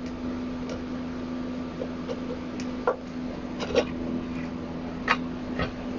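A few light clicks and knocks of parts being handled as the top housing of a KitchenAid Professional 600 stand mixer is lifted off, over a steady low hum.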